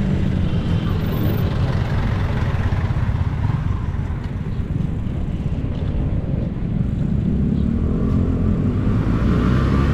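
Wind rumbling on the microphone of a moving bicycle, mixed with the steady noise of motor traffic on the road, a little louder near the end.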